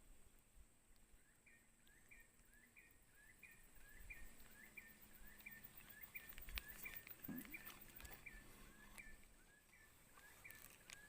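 Faint bird call: a short rising note repeated about twice a second, steady and even, over quiet outdoor background.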